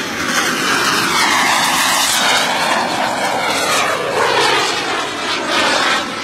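Radio-controlled scale model jet flying past, its engine a loud, steady rushing whine that falls in pitch as it goes by and swells again a few seconds later on another pass.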